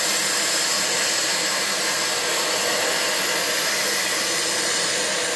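Oxy-acetylene cutting torch hissing steadily with its cutting oxygen on, the jet blowing molten steel out of a weld in a spray of sparks.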